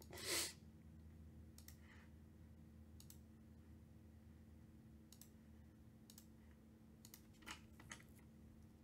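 Near silence with a handful of faint, scattered clicks, after a short louder burst at the very start.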